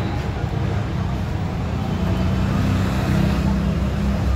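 Steady low hum and rumble of workshop machinery, with no sharp crackle or impacts.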